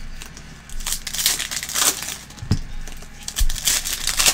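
Foil wrapper of a trading-card pack crinkling and tearing as it is pulled open by hand, in several short bursts, with a couple of soft knocks.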